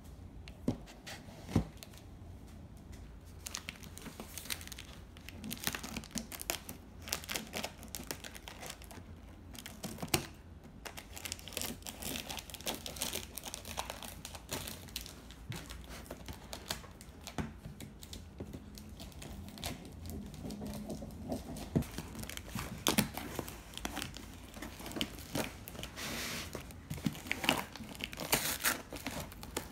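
Cardboard shipping box being opened: scissors cutting and tearing the packing tape, cardboard flaps scraping and plastic wrap crinkling, with a few sharp knocks as the box is handled.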